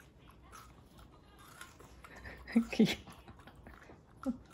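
Boston terrier biting and chewing a crisp piece of watermelon held in its owner's fingers, small crunching clicks throughout. A couple of short louder sounds come about two-thirds of the way in, and another near the end.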